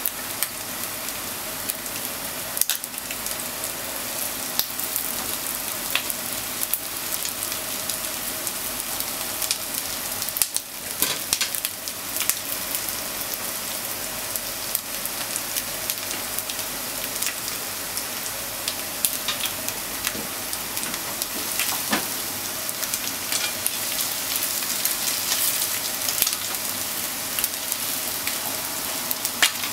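Flour-coated chicken pieces shallow-frying in oil in a nonstick frying pan: a steady sizzle with scattered crackles and pops, and a cluster of louder crackles and clicks about ten to twelve seconds in.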